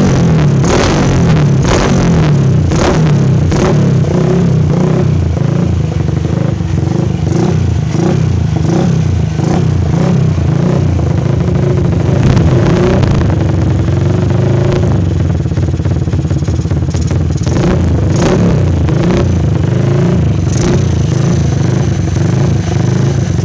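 Honda GL motorcycle's single-cylinder four-stroke engine running loud through a Kawahara aftermarket racing muffler. It is blipped repeatedly, about once every 0.7 s, for the first few seconds. After that it runs more steadily, with a few further revs later on.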